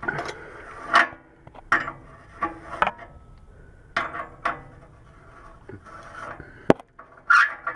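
An oxygen sensor being unscrewed from a car's exhaust pipe by hand and tool: irregular metallic clinks and scrapes, about one every half second, with one sharp click near the end.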